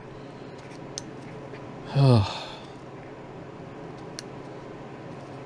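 A man's short sigh, falling in pitch, about two seconds in, over a steady low hum. A few faint ticks of a screwdriver working a mixture screw into a Solex carburetor body come before and after the sigh.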